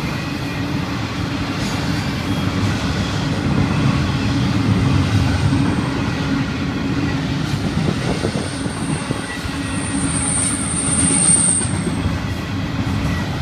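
Double-stack intermodal container cars of a Florida East Coast Railway freight train rolling past with a steady rumble of wheels on rail. Past the middle, a thin high-pitched wheel squeal comes in and is strongest near the end before fading.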